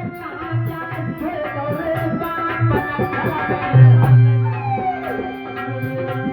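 Instrumental folk devotional music: tabla drumming with regular deep strokes under steady held notes from a melody instrument, with a gliding melodic line in the middle.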